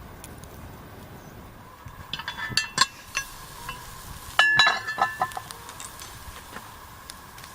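Metal cookware and utensils clinking and ringing, in two short clusters about two seconds in and about four and a half seconds in, the second one louder.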